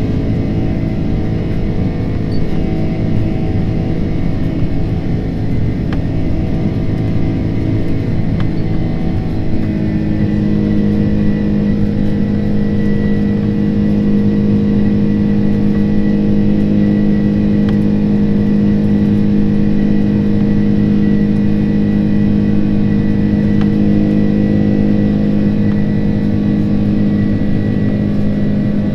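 The Boeing 767-300ER's jet engines, heard from inside the cabin during the initial climb after takeoff: a loud, steady drone with humming tones. About ten seconds in, the tones shift to a deeper, slightly louder hum that then holds steady.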